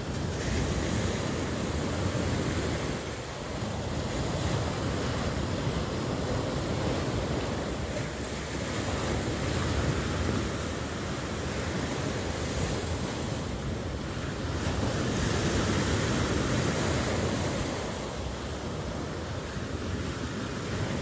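Ocean surf: waves breaking and washing in a continuous rush that swells and eases slowly.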